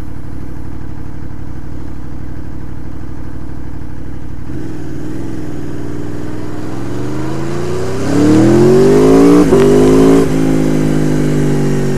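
2015 Aprilia Tuono V4R's V4 engine through its stock exhaust, running steadily at low revs, then pulling away. The note rises from about six seconds in and is loudest around eight to ten seconds, with a brief break in the middle. It then drops back to a steady, lower cruising note near the end.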